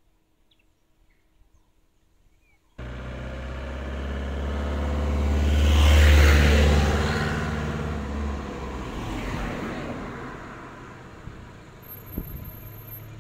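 Near silence with a few faint bird chirps, then an abrupt jump to a motor vehicle driving past. Its engine and tyre noise swell to a peak about halfway through, then fade away.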